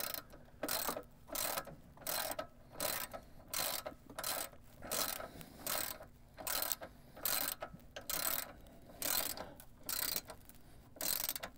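Hand ratchet with a 10 mm socket worked back and forth in short strokes, its pawl clicking in a quick burst on each return swing, about one and a half strokes a second, as it runs down the rocker guard's mounting nuts.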